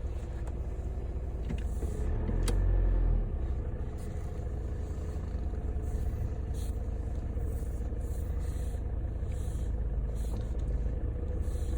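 Hyundai Santa Fe's CRDi diesel engine running steadily, heard from the cabin, with a louder low rumble for about a second starting around two seconds in.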